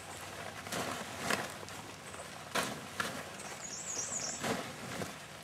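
Plastic tarp shaken and flapped in the air, in a series of rustling swishes.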